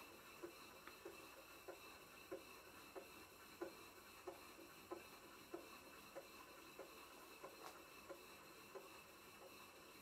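Model vertical steam engine running slowly on steam, its soft exhaust beats coming as faint, even ticks about three every two seconds.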